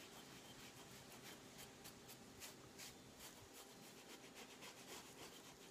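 Faint rubbing of a wet cloth rag over a stone tile, a soft scratch repeating about three times a second: soaked paper is being scrubbed off to uncover a transferred image.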